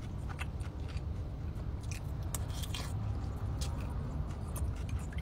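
Close-up chewing and small wet mouth clicks of someone eating bakso noodles and meatballs, over a steady low hum.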